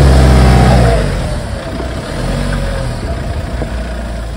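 Suzuki Jimny's engine running hard at high revs, then easing off about a second in, its pitch falling, and running on more quietly at lower revs.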